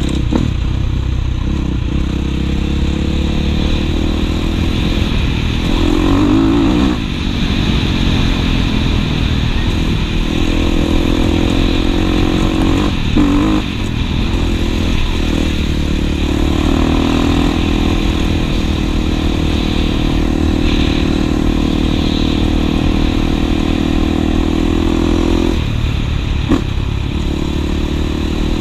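Dirt bike engine pulling steadily at speed, heard from the bike with wind noise on the microphone. The engine note dips briefly twice, about seven and fourteen seconds in, then picks up again.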